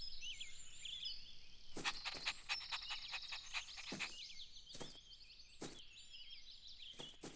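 Birds chirping and twittering faintly in a background birdsong ambience, with several short soft taps scattered through it.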